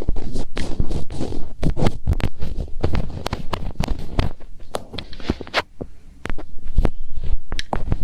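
Fingertips rubbing, scratching and pressing on a binaural ear microphone for ASMR finger ear cleaning: dense, irregular close crackles and scrapes with dull low thumps, easing off briefly about six seconds in.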